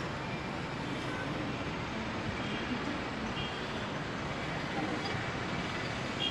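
Steady outdoor background noise, an even hiss and rumble like distant traffic, with faint scattered voices.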